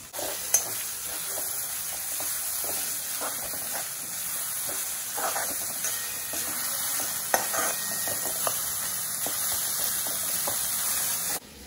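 Chopped onions sizzling in hot oil in a metal kadhai as they are stirred with a metal spatula, which scrapes and clicks against the pan now and then.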